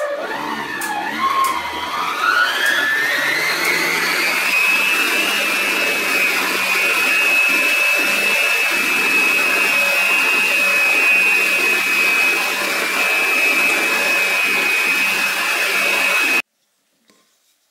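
Electric stand mixer's motor and wire whisk in a stainless steel bowl, whipping a cream and yogurt mixture: the whine rises over the first few seconds as the mixer is turned up to top speed, then runs steady and high. It stops abruptly near the end as the mixer is switched off.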